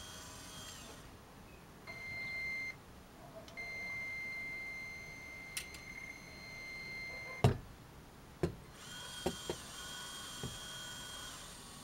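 Tonka Cranemaster RC toy crane's electric motors whining as it works the clamshell grab and moves the boom: a brief high steady whine, then a longer one of about four seconds. Just past halfway there is a sharp clack, the loudest sound, then a few lighter clicks and another whine at a different pitch near the end.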